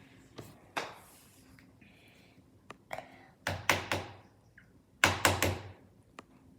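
Sharp knocks and taps of a toy egg being struck against a hard surface to crack it open: single strikes at first, then two louder clusters of about three quick knocks, the second near the end.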